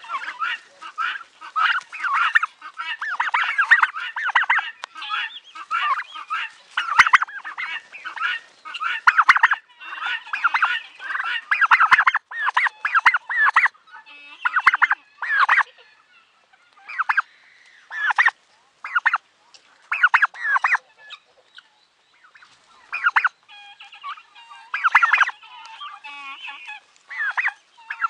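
Several white domestic turkeys gobbling over and over, a dense run of rapid rattling calls that thins out about halfway through into separate gobbles with short pauses between them.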